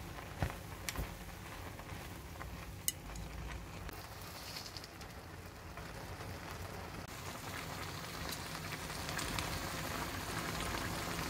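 A large pot of Chapagetti instant noodles cooking on the boil: a steady bubbling hiss that grows a little louder toward the end. A few sharp taps of wooden chopsticks against the pot come in the first three seconds.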